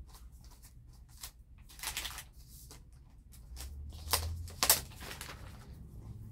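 Clear plastic wrap crinkling and rustling in a handful of short bursts as a tablet is pulled out of it and handled, the loudest rustle about four and a half seconds in.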